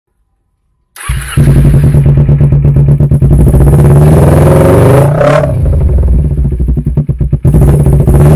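Yamaha Byson FI's single-cylinder engine running loud through an aftermarket Marker Beam slip-on muffler taken from a Ninja 250, with a rapid popping exhaust beat. The throttle is blipped: the pitch rises and falls about halfway through, and the engine revs again near the end.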